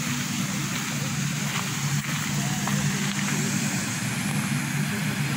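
A steady, low engine drone with no clear change in pitch or level.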